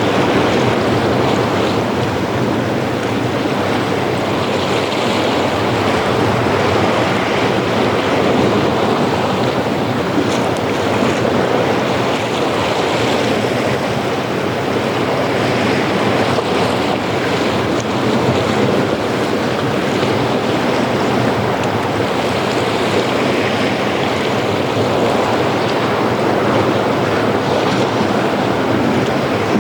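Ocean waves breaking and washing up a sandy beach, a steady roar of surf that swells and eases every few seconds.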